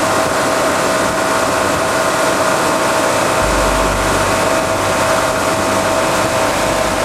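Motorboat engine running steadily under way, a constant drone with a high whine, mixed with the rush of the wake and wind. A low wind rumble on the microphone comes in about halfway through.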